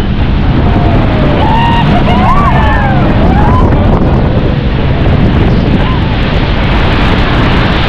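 Steady loud roar of a tourist speedboat ride near the waterfalls: engine, rushing water and wind on the microphone. Passengers briefly whoop and shout with rising and falling cries about two seconds in.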